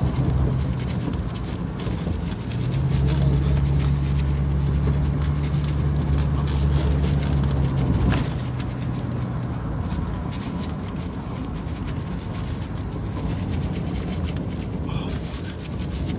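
Vehicle driving: a steady low engine drone with road and wind noise. The drone grows louder about three seconds in and eases back about eight seconds in.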